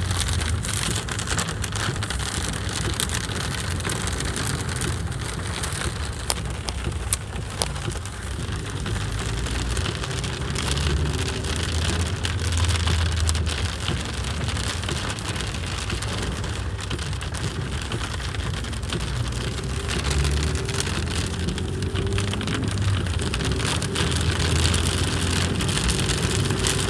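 Heavy rain drumming on a car's roof and windshield, heard from inside the moving car. A low rumble of the car driving on the wet road runs underneath, and a few sharp drop ticks come around six to seven seconds in.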